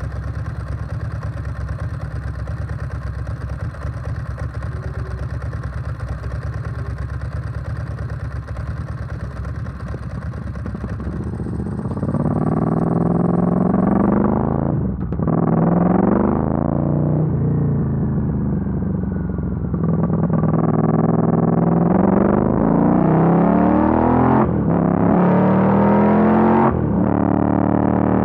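Ducati Monster S4R's V-twin engine running at a steady low rumble, then from about twelve seconds in revving up again and again as the bike accelerates, each rise cut by a brief drop at a gear change.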